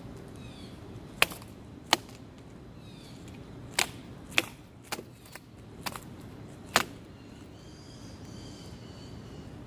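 Old Canon camcorder being smashed: a run of sharp, hard blows, about seven over six seconds, irregularly spaced, with no blows in the last few seconds.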